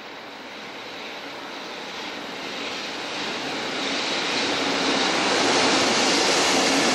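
JR Freight EF65 electric locomotive hauling a container freight train through a station, its running noise a steady rumble that grows louder as it approaches and draws level.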